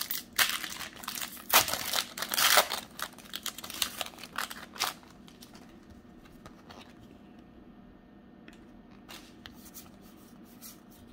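Foil Pokémon trading-card booster pack crinkling and tearing as it is opened: a rapid run of sharp crackles for about five seconds, then only a few faint rustles and clicks.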